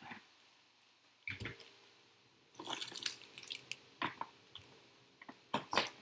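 Handling noise from unpacking electronic parts: a small plastic bag crinkling and plastic pieces clicking and knocking in irregular bursts, densest a little past halfway.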